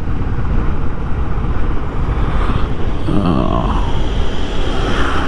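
Motorcycle riding along the road, its engine running steadily under heavy wind rush on the rider's microphone.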